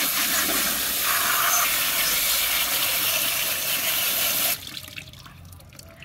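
Hose spray nozzle jetting water onto a toy in a plastic basket: a loud steady hiss of spray that cuts off suddenly about four and a half seconds in.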